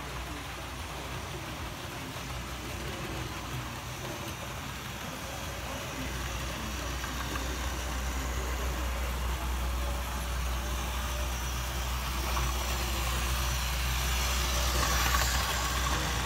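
Model Class 56 diesel locomotive running past with a long rake of container wagons, a steady mechanical hum growing louder as the train comes close; the low hum steps up about six seconds in.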